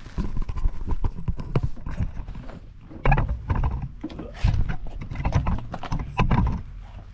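Irregular knocking and clattering of a plastic side skirt being pushed and knocked into place against a Miata's body, in several bunches of knocks.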